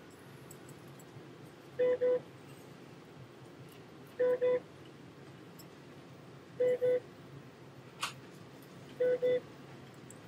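An electronic beeper sounding two short beeps about every two and a half seconds, four pairs in all, over a low room hum. A single sharp click comes about eight seconds in.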